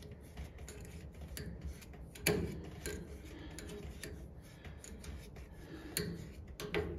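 Small scattered clicks and taps of a leak-detector bottle's wire dauber being dabbed against a gas connector's brass flare fitting, with a sharper click about two seconds in and a few more near the end.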